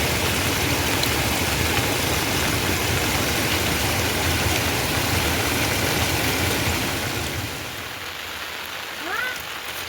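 Heavy rain falling in a steady dense hiss with a low rumble, easing somewhat about seven and a half seconds in. A short rising call cuts through near the end.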